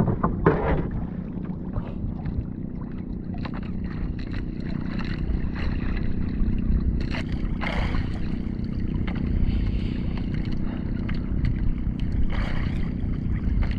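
Small fishing boat's engine running steadily, with a low rumble of wind on the microphone and a couple of brief swishing noises about halfway through and near the end.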